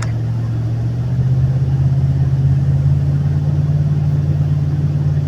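Vehicle engine and road noise heard from inside the cab while driving: a steady low drone that rises slightly in pitch and gets a little louder about a second in.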